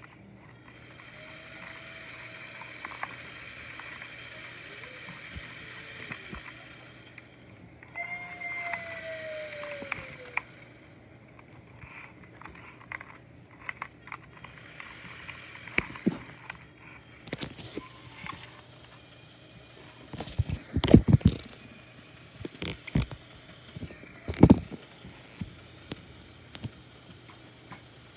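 Small LEGO electric motor spinning the model jet engine's parts with a steady hiss, twice, each run ending in a whine that falls in pitch as it winds down. Then clicks and knocks of handling, with two loud thumps in the second half.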